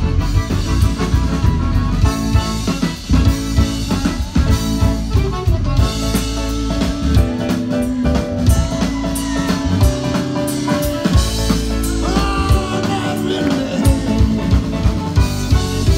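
Live Cajun band playing: an accordion carries held chords and melody over a drum kit and bass, with occasional singing.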